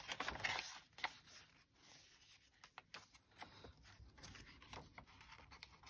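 Faint rustling and light taps of paper and card pages being turned and handled in a handmade junk journal, a little louder in the first second.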